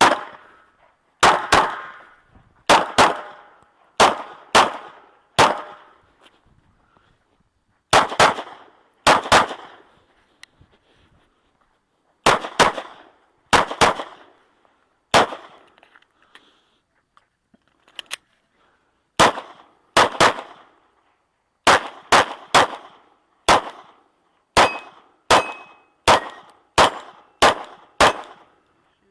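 Glock 19 9mm pistol firing 115-grain rounds on a timed 3-gun stage: many sharp shots, mostly in quick pairs and short strings, with pauses of a second or more between groups.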